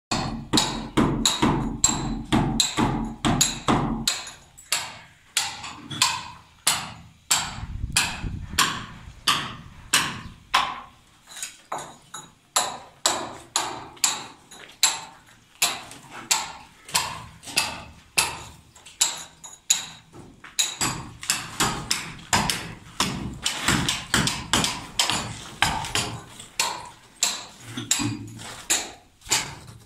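Hammer blows on masonry repeating steadily at about two to three a second, each a sharp knock.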